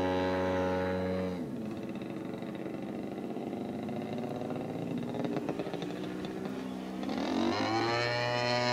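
The Katana plane's propeller engine drones steadily overhead. About a second and a half in it is throttled back to a quieter, rougher sound, and near the end it rises in pitch and power again as the throttle opens during an aerobatic manoeuvre.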